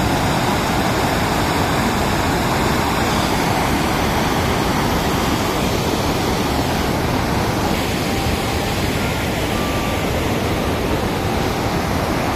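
Floodwater from a full dam spilling over its spillway gates and rushing through the channel below, making a loud, steady noise of churning water.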